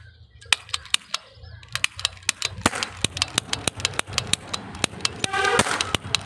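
Plastic roll cap gun clicking rapidly and unevenly as it is worked by hand while a roll of paper caps is loaded into it; the clicks are sharp but light, with no full cap bang.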